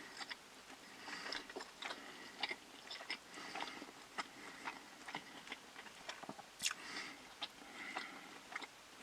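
A person chewing and biting into food close to the microphone, with irregular crunchy clicks several times a second.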